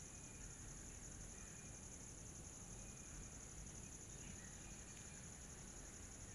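Near silence, with a faint, steady, high-pitched pulsing hiss throughout.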